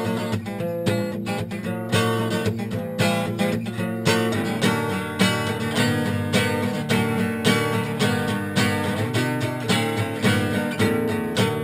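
Epiphone Hummingbird Pro acoustic guitar strummed in a steady rhythm, the chords ringing on between strokes.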